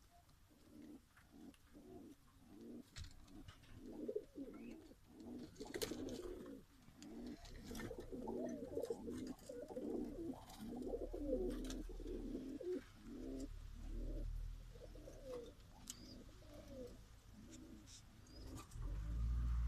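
A flock of ornamental domestic pigeons cooing, many low calls overlapping, with a few sharp clicks among them and a low rumble starting near the end.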